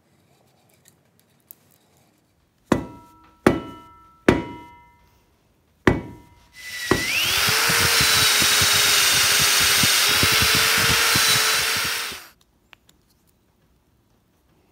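Four sharp knocks, each with a short ring, as the steel shovel head is knocked onto its wooden handle. Then a corded electric drill spins up and bores through the steel shovel socket for about five seconds before stopping.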